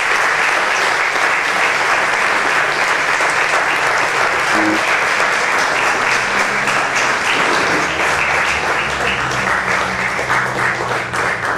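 Audience applauding steadily with many overlapping claps, greeting a speaker called to the podium.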